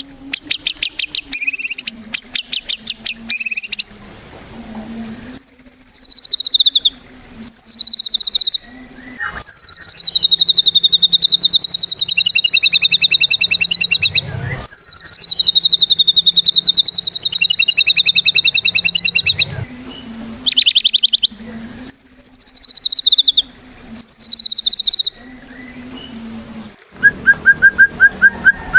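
White-rumped shama (murai batu) singing loudly in rapid, rattling trilled phrases: several short bursts, then two long trills of about four seconds each, then more short phrases. A faint steady low hum lies beneath, and near the end a lower, fast run of repeated notes comes in.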